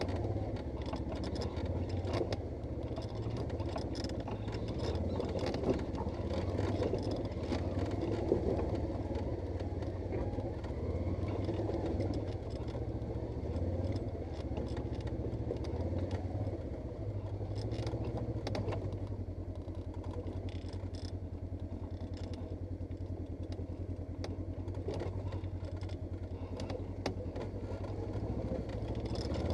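Polaris RZR 900 S side-by-side's twin-cylinder engine running under way off-road, the throttle rising and easing, with scattered clatter and knocks from the machine over rough ground. The engine settles lower and quieter about two-thirds of the way through.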